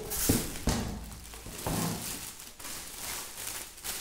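Clear plastic wrapping bag crinkling and rustling as it is handled, with a few light knocks in the first couple of seconds.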